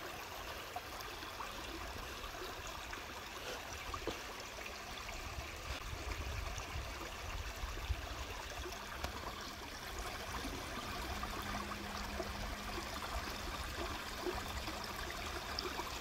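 Footsteps on loose creek-bed rocks, scattered small clicks, over a steady outdoor hiss and a low, unsteady wind rumble.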